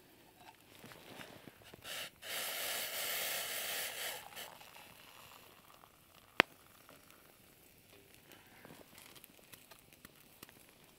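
Hot water poured into a mug to make tea, a steady pour lasting about two seconds. A single sharp click follows a couple of seconds later.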